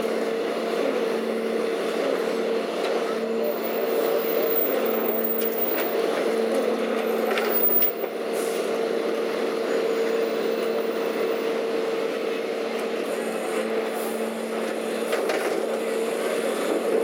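Leach 2R-II rear-loader garbage truck running steadily with its hydraulics working as a steel half-yard container is lifted on a chain and tipped into the hopper. About eight seconds in, the load of demolition debris drops out with a loud clatter.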